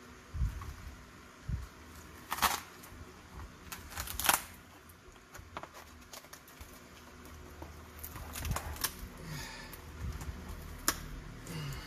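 Peel ply being pulled off cured fiberglass by gloved hands: irregular crackling and rustling with scattered sharp ticks, and two louder tearing rasps about two and a half and four seconds in. The ply is sticking and not coming away easily.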